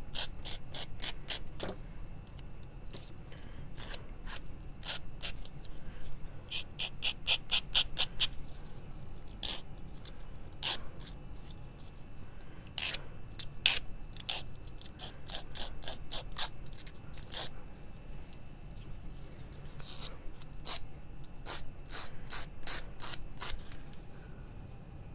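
Square sanding file, a nail-file-type emery board, rubbed back and forth along the edge of a small cut-out leaf to sand it. It comes as quick runs of short rasping strokes, about four a second, at the start, around a third of the way in and again near the end, with scattered single strokes between.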